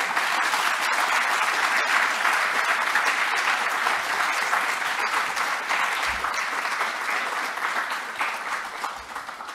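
Audience applauding: dense, steady clapping that begins at once and tapers off over the last couple of seconds.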